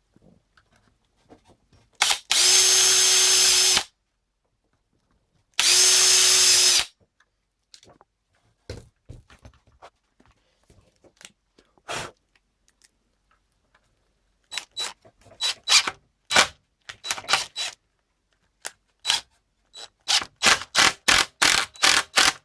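Power drill driving the screws that fix a ski binding in place, run in two steady bursts of about a second and a half and a second. Later come a string of short sharp clicks and brief spurts, growing denser near the end.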